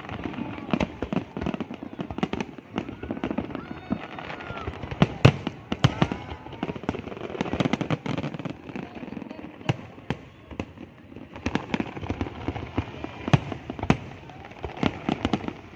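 Fireworks going off: sharp bangs and crackles, irregular and frequent.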